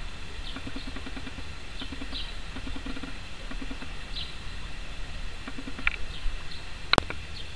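Outdoor ambience: scattered short bird chirps over a steady low rumble, with short runs of low pulsing calls. A single sharp click about seven seconds in.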